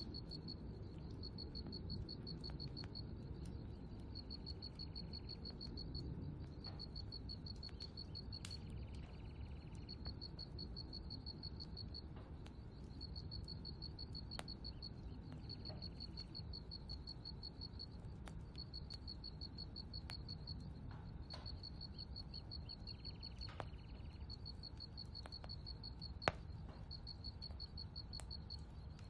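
An insect chirping high and fast, in runs of a second or two with short gaps, over a low steady background rumble. A single sharp click stands out near the end.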